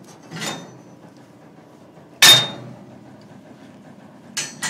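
Freshly plasma-cut steel plate clanking as it is handled on the plasma table's metal slats: a soft clink about half a second in, one loud ringing clank a little after two seconds, and a sharper clink near the end.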